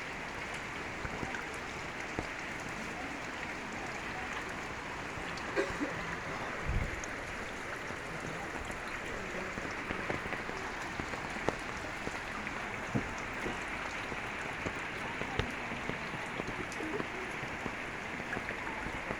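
Floodwater rushing steadily, with scattered small splashes and drips and a brief low bump about seven seconds in.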